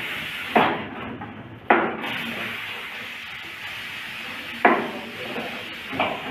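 Chef's knife chopping cauliflower on a plastic cutting board: four separate sharp knocks of the blade hitting the board, spaced unevenly a second or more apart, over a steady background hiss.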